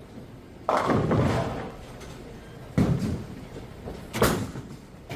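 Bowling alley impacts: a sudden crash about 0.7 s in that dies away over about a second, then two sharp knocks, one near 3 s and one a little after 4 s, of the kind that bowling balls and pins make.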